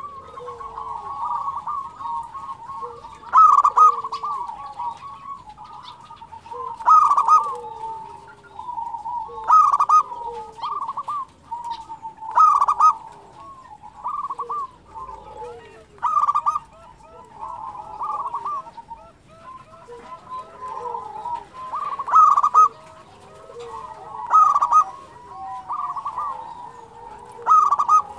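Zebra dove (local perkutut) singing without pause: phrases of quick rolling coos, with a louder phrase about every three seconds.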